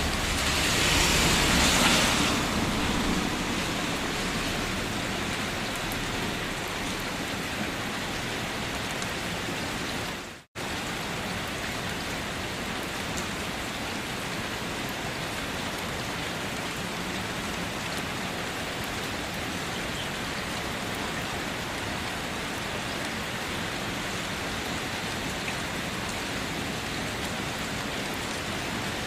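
Steady rain falling, an even hiss of many drops, swelling louder for the first couple of seconds. About ten seconds in, the sound cuts out for a split second and comes straight back, like a loop splice in the recording.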